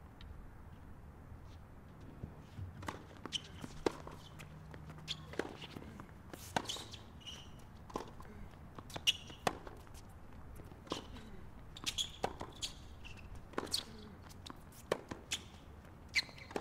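Tennis rally on a hard court: racket strikes and ball bounces going back and forth, with players' shoes scuffing and squeaking on the court. It begins a couple of seconds in.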